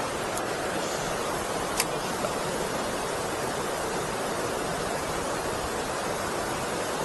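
Steady rush of river water pouring through and below a weir, with a sharp click just under two seconds in.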